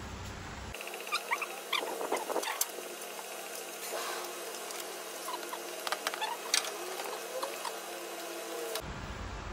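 Scattered sharp metallic clicks and clinks with short high-pitched squeaks as a transmission is handled and worked into place under a car.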